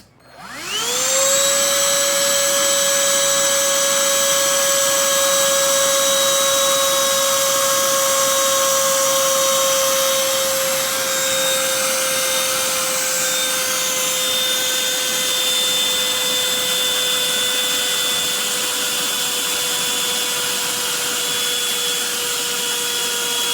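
Black+Decker cordless pivot handheld vacuum switched on with a click; its motor spins up within about a second to a steady high whine with rushing airflow. It runs on without pause, the whine sagging slightly in pitch.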